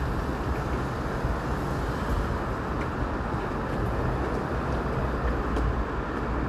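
Steady traffic noise from a congested city road, with cars and a city bus moving slowly in heavy traffic.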